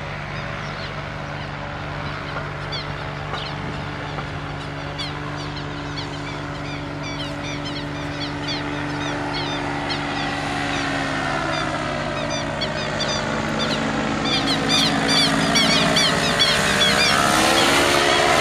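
Small engine of a minitrike (motorised hang-glider trike) flying overhead: a steady propeller drone that grows louder as the trike comes closer, its pitch dipping and swinging in the second half. Many short high chirps sound over it.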